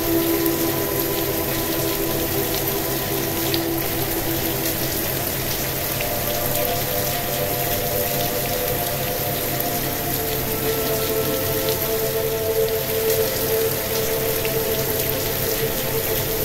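Steady rain with fine droplet ticks, mixed under slow, held synthesizer tones, a relaxation pad whose notes shift a few times, with a steady low hum beneath.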